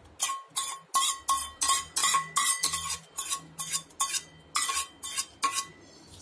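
A metal spoon clinking and scraping against a small tadka pan as the tempering is knocked out into a steel bowl of chutney: sharp metallic clinks about three a second, each with a brief ringing tone. The clinks stop about five and a half seconds in.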